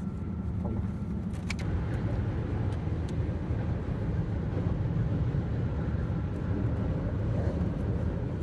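Car cabin noise while driving: a steady low rumble of engine and road noise, with a few faint clicks.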